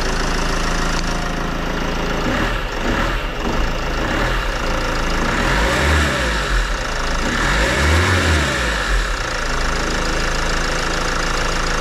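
Mercedes Vito W639 diesel engine idling, then revved up and back down twice, settling back to a steady idle. There is no rattle from the AC compressor: its pulley with the torsional damper has just been replaced.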